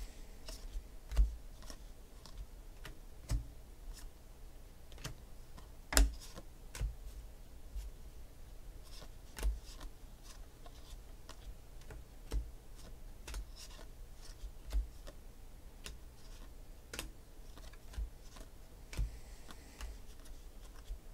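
2016 Panini Phoenix football cards being flipped through by hand, one card after another: irregular light clicks and snaps of card edges, with a few louder taps scattered through.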